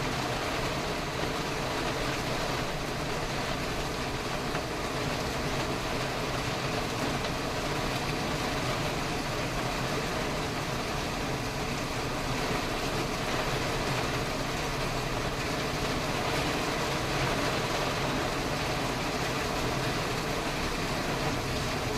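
Steady running noise of a motor vehicle, engine and road noise together, with no distinct events.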